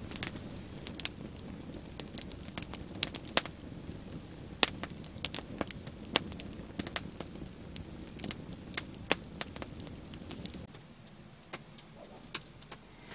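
Wood campfire crackling, with sharp irregular pops over a low rush that drops away about ten seconds in.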